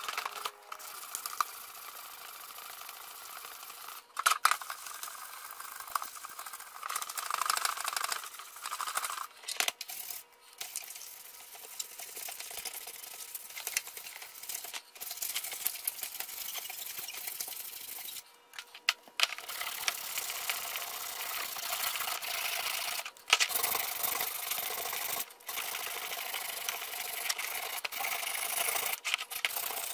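Hand sanding the painted sheet-steel body of a tool box with 240-grit sandpaper: a steady hissy scratching of paper rubbing over paint and metal, stopping and starting abruptly several times.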